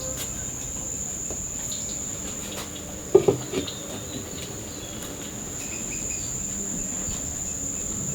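Insects keeping up a steady, high, unbroken trill. About three seconds in there is a short louder sound, twice in quick succession.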